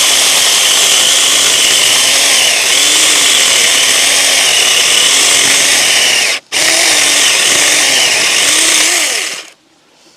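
Saker mini electric chainsaw running loudly, its motor whine wavering and dipping in pitch. It cuts out for an instant about six and a half seconds in and stops about nine and a half seconds in.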